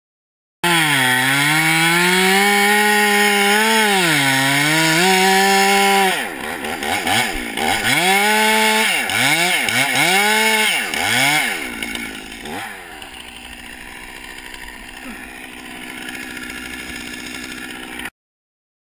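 Chainsaw's two-stroke engine running at high revs, its pitch sagging twice. It is then revved up and down in several quick throttle blips before it drops to a quieter low idle, and the sound cuts off abruptly near the end.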